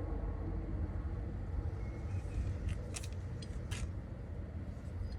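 A few short, light clicks and taps of a bolt and door-handle parts being handled and fitted, over a steady low rumble.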